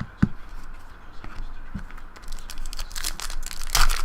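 Two light thuds, then a trading card pack's wrapper being torn open and crinkled, the crackling loudest near the end.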